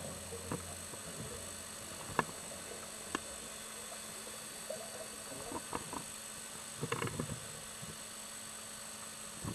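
Underwater camera sound: a steady hiss with scattered sharp clicks, and a brief cluster of louder knocks and rumbles about seven seconds in.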